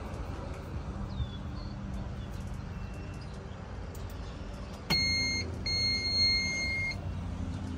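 Electronic beeper sounding twice, a short high beep and then a longer one of about a second, over a low steady background rumble.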